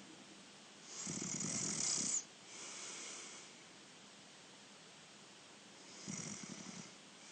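A sleeping person snoring: two rattling snores about five seconds apart, the first followed by a softer, breathy breath.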